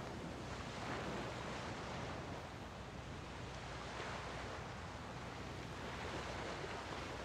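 Small San Francisco Bay waves washing onto the beach, surging every few seconds over a steady low hum, with a little wind.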